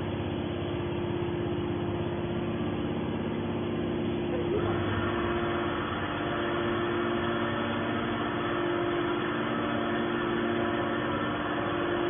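Hydraulic scrap metal baler's motor and pump running steadily with a low multi-tone hum; about four and a half seconds in a higher-pitched rushing noise joins over it.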